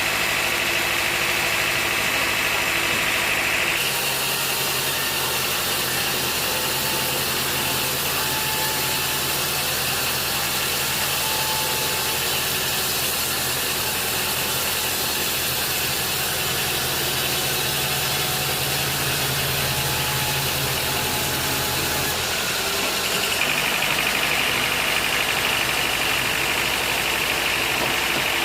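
Engine-driven sawmill machinery running steadily, with a high ringing tone that drops out about four seconds in while the engine note deepens, and comes back a few seconds before the end.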